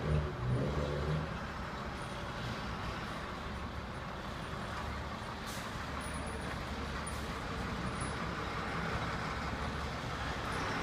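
Fire engine's engine running at low speed, a steady low rumble, as the truck slowly backs into the station bay; a little louder in the first second.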